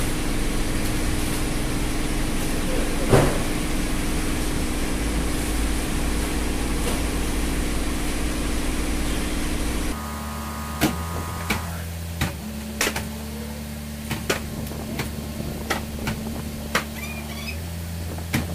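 Steady low machine hum that drops abruptly in level about halfway through. From then on, a series of short knocks and thumps as cardboard cartons of motor oil are lifted and set down on a stack.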